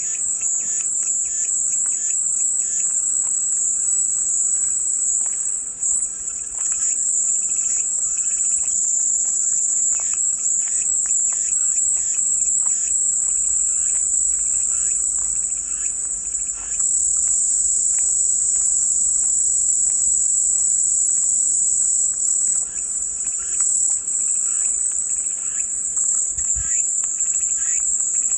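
A chorus of cicadas buzzing in a continuous high-pitched drone, with fainter short chirps beneath it.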